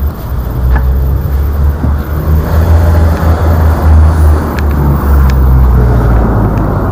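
Street traffic on a city road, a loud uneven low rumble with a rush of passing-car noise that swells midway, and a few light clicks.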